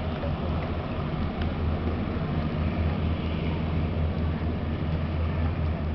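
AP1-88 passenger hovercraft running at speed across the water, its engines and twin ducted propellers giving a steady low drone with a hiss over it.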